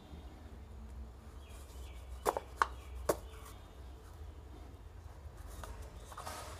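Hands sowing seeds into a plastic seed tray of potting mix: three sharp clicks close together a couple of seconds in, then faint rustling near the end.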